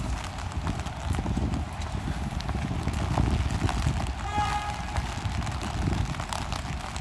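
Footsteps on wet paving, clicking along steadily over a low rumble of street and wind noise. A short pitched tone sounds about four seconds in.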